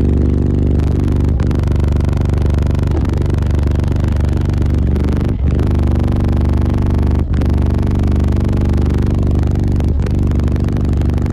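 Four 18-inch Fi NEO4 subwoofers on an 8,000-watt amp playing a 24 Hz test tone inside a vehicle: a steady, loud, buzzy low drone, with wind-like air rushing from the box port.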